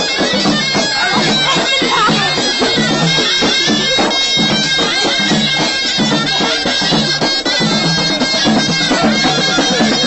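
Live traditional music: a loud, reedy wind instrument plays a continuous melody over a steady drum beat.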